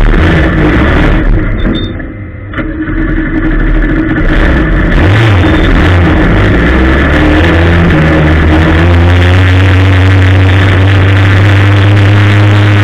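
Ministock race car's engine heard from inside the car: it eases off briefly about two seconds in, then the revs climb steadily and hold high under full throttle.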